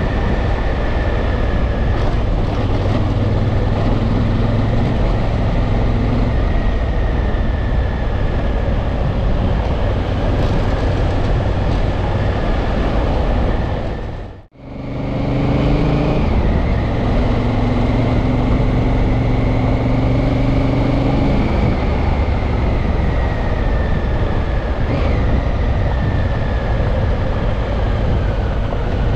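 Honda Africa Twin's parallel-twin engine running at steady speed on a dirt road, with wind and tyre noise. About halfway through the sound fades out briefly and comes back.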